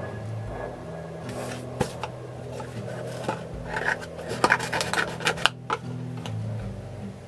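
Cardboard boxes being handled and shifted: rubbing and scraping of cardboard with light knocks, busiest in the middle few seconds.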